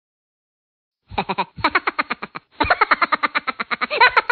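A rapid run of short, pitched pulses, about eight to ten a second, starting about a second in after dead silence and lasting to the end. It plays like an added cartoon-style sound effect rather than the kitchen's own sound.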